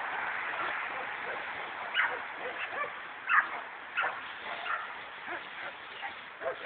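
A dog barking and yipping: several short, sharp barks spread over a few seconds.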